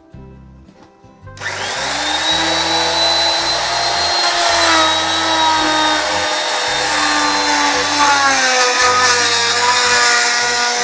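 Electric woodworking power tool starts about a second and a half in and runs loud and steady with a high whine, cutting wood. Its pitch drops a little later on, a sign of the cutter taking load in the pallet wood.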